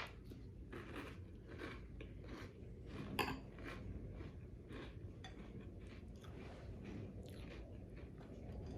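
A person chewing a mouthful of Reese's Puffs cereal in milk: a run of soft, repeated crunches, one louder crunch about three seconds in.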